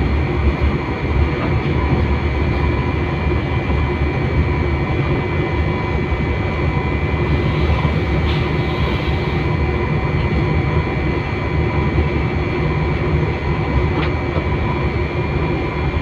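Diesel locomotive running steadily under way: an even engine drone with a constant whine above it, mixed with the rumble of the wheels on the track.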